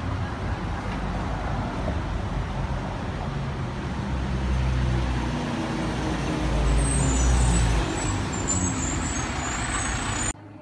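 Street traffic passing close by: a heavy vehicle's engine rumble swells through the middle, with short high squeals in the second half. The sound cuts off suddenly just before the end.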